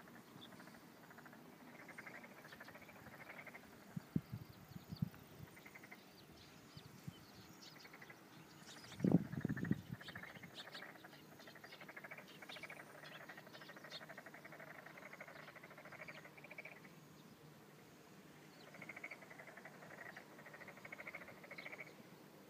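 Frogs in the rice paddy calling in chorus: rapid pulsed trills that swell and fade in waves. A few low thumps come around four to five seconds in, and a brief low rumble, the loudest sound, about nine seconds in.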